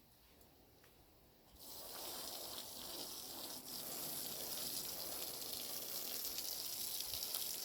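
Garden hose spraying a steady jet of water against the side of the house, rinsing the wall. The spray starts about one and a half seconds in and runs steadily.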